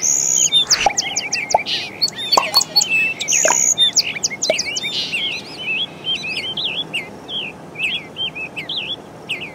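A busy chorus of small birds chirping and tweeting: many short, quick calls overlapping, with warbling up-and-down whistles and a couple of longer high notes.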